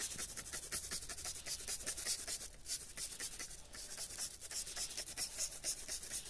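Hand trigger spray bottle pumped over and over, a quick series of short hissing spritzes of foaming cleaner.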